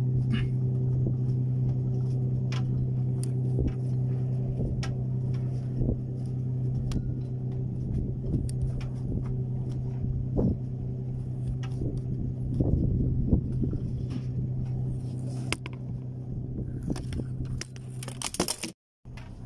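A motor yacht's engines running steadily, a low even hum, with scattered light clicks and knocks over it. The hum cuts off near the end.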